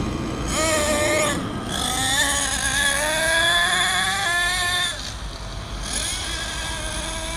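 Thunder Tiger MTA-4 monster truck's .28 nitro engine revving hard as the truck accelerates: a short burst about half a second in, then a longer run from about two seconds in with the pitch climbing, dropping back near five seconds, and another smaller rise near the end.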